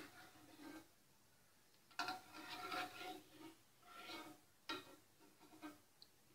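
Stainless-steel perforated skimmer scraping and clinking in a nonstick frying pan of hot ghee as fried almond slivers are scooped out and set on a steel plate, in several short bursts with a brief metallic ring.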